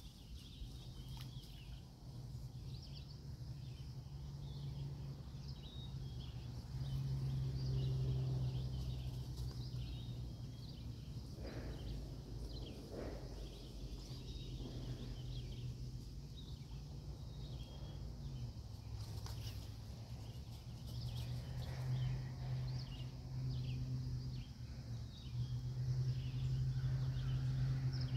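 Riverside ambience: a steady high chorus of small chirps, with a strong low hum underneath that swells and fades every few seconds.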